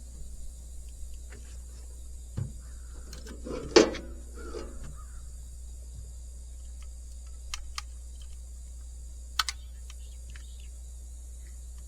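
Scattered metallic clicks and knocks of tie-down gear being handled while a load is secured on a trailer, with one louder knock about four seconds in.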